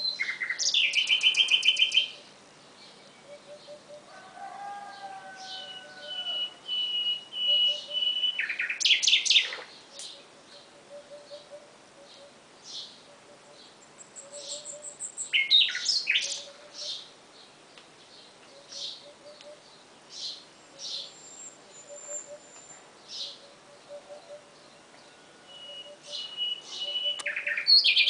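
Nightingale singing: four loud phrases of fast repeated notes, long held whistles and buzzy runs, with pauses of several seconds filled by quieter single notes.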